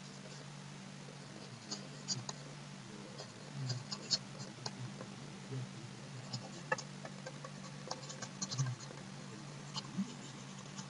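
Faint scratches and light ticks of handwriting strokes being written on screen, scattered irregularly from about two seconds in, over a steady low electrical hum.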